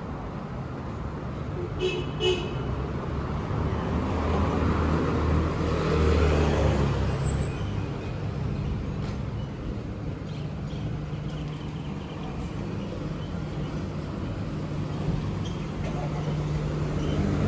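Street traffic with a motor vehicle's engine rumbling past close by, swelling a few seconds in. About two seconds in, a car horn gives two short toots.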